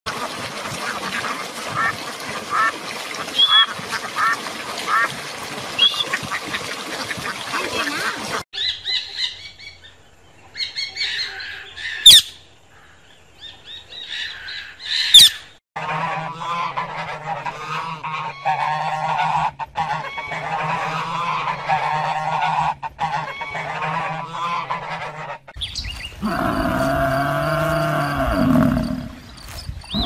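A crowd of domestic ducklings peeping for the first several seconds. Later, for about ten seconds, a caged flock of grey domestic geese honks over a steady low hum. Just before that there are a couple of sharp, loud calls, and near the end a lower animal call whose pitch rises and falls.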